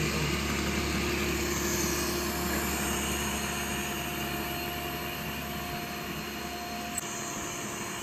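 Robot vacuum-mop running on maximum suction while sweeping and mopping: a steady motor whir over a low drone, slowly growing fainter as it moves off. The low drone drops out about six seconds in, and there is a single light click near the end.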